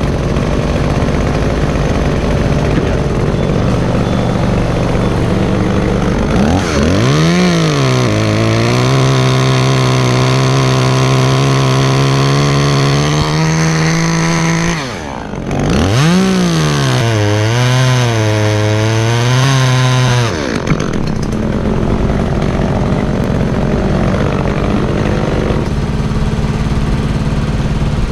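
Echo chainsaw revved up and cutting into a tree limb in two runs, the first from about six to fifteen seconds in and the second, after a brief break, until about twenty seconds, over a steady engine drone that continues before and after.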